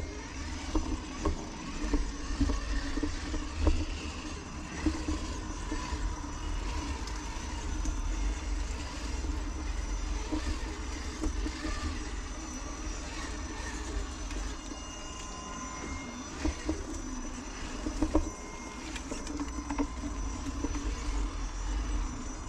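Traxxas TRX-4 RC crawler's electric motor and geared drivetrain whining as it creeps over dirt and grass, its pitch wandering with the throttle, with small knocks and crunches from the tyres over a steady low rumble.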